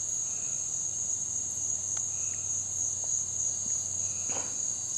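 Crickets trilling in a steady, unbroken, high-pitched chorus, with a brief rustle about four seconds in.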